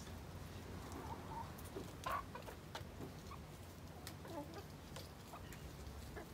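Hens clucking softly while feeding, a few short calls with one louder cluck about two seconds in.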